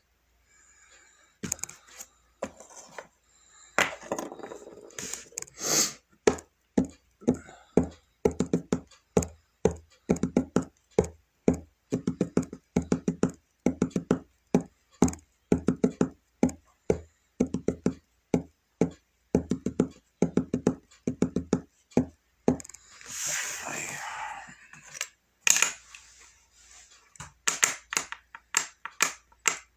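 Rapid fingertip taps on a phone's touchscreen, picked up close by its own microphone as a long run of short knocks, two to three a second. A brief rushing noise breaks the run about three quarters of the way through.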